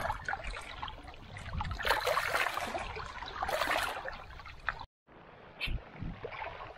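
Water splashing and trickling for a few seconds, then after a short break a quieter stretch with a couple of faint clicks.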